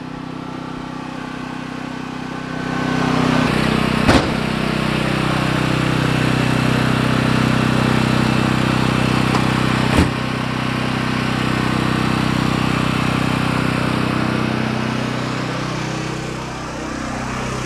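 Portable generator engine running steadily with a low, even hum, growing louder a few seconds in. Two sharp knocks break through it, one about four seconds in and another about ten seconds in.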